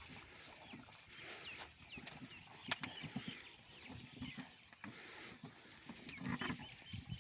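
Chickens clucking, with many short high chirps scattered through and a sharp click a little under three seconds in.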